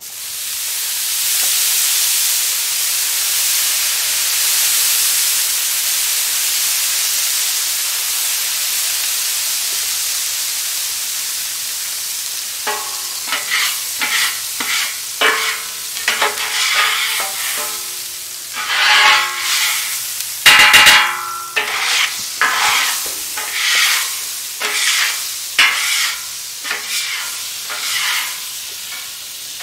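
Water sizzling on a hot flat-top griddle: a loud, steady hiss that sets in at once and slowly dies down. About halfway through, a metal griddle scraper starts scraping across the cooking surface in short strokes about once a second, one of them ending in a knock.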